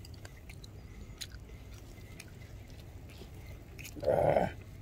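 A person chewing grilled anchovies, with faint scattered clicks of wooden chopsticks, over a steady low hum; a brief louder sound about four seconds in.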